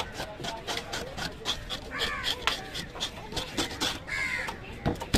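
Knife scraping and cutting along a large whole fish on a wet table in quick, repeated strokes. A crow caws twice, about two and four seconds in.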